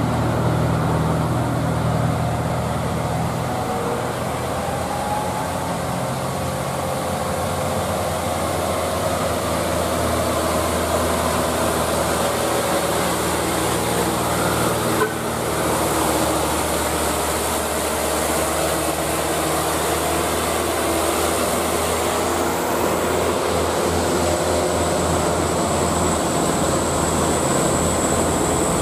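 Diesel engines of loaded light dump trucks labouring up a hill, a steady drone whose note slowly rises and falls as they pull past, with a short break about halfway through.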